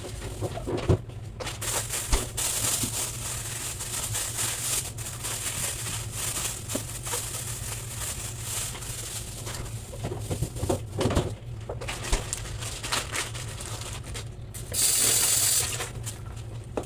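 Refrigerator being cleaned by hand: rustling, light clinks and knocks as items and shelves are handled and wiped. A loud hiss lasting about a second comes near the end.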